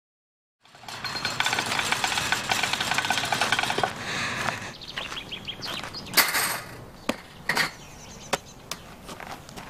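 Busy outdoor background sound for about three seconds, then a handful of separate sharp knocks from a boy handling a wooden baseball bat and baseballs.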